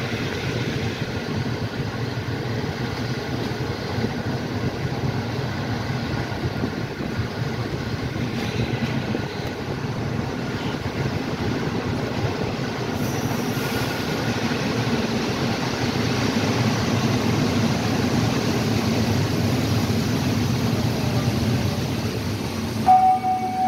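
Passenger train rolling along a station platform, heard from inside the carriage: a steady rumble of wheels on rails and running noise. A short stepped chime-like tone sounds in the last second.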